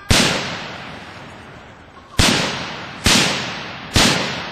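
Four rifle shots from an M1 Garand firing .30-06 ball ammunition: one shot, then about two seconds later three more, just under a second apart, each followed by a long fading echo.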